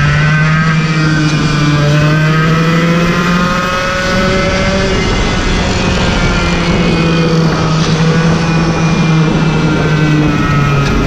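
Racing go-kart engine running at speed, heard onboard, its pitch rising and falling with the throttle through the corners.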